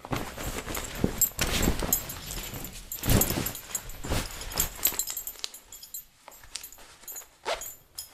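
Peeing sound effect played back: an irregular hissing noise made of many short bursts, loudest in the first few seconds and breaking up into scattered spurts near the end.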